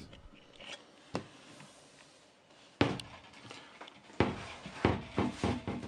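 Footsteps and knocks on a boat cabin's wooden floor, in a small room: a faint click about a second in, one loud knock a little before three seconds, then several more thuds near the end.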